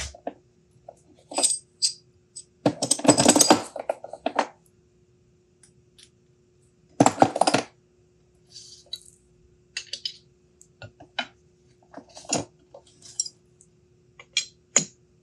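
Steel tools clinking and clattering against a lathe's true-set chuck as a hex key is picked up and fitted into the chuck's adjusting bolts: scattered sharp clicks, with longer rattling clatters about three seconds in and about seven seconds in. A faint steady hum runs underneath.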